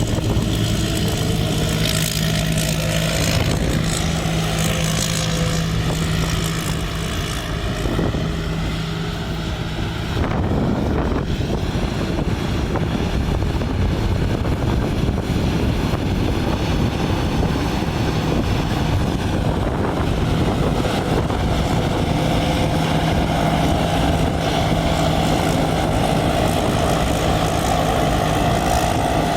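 Large rice combine harvester running while it harvests, a steady engine drone. From about ten seconds in to about twenty seconds the even tone gives way to a rougher, noisier rush, then the steady drone returns.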